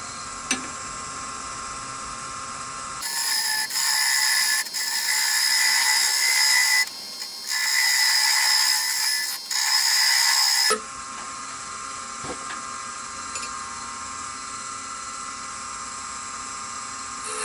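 Wood lathe running with a steady hum while a turning tool cuts into the spinning wooden hammer-handle blank, a loud hissing cut in several passes from about three seconds in to about eleven seconds in, with short pauses between them. After that the lathe runs on alone.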